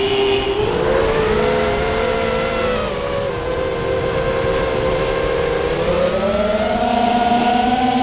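Freestyle quadcopter's brushless motors and propellers whining. The pitch rises and falls with the throttle: it climbs about a second in, sinks a little around three seconds, and climbs again about six seconds in.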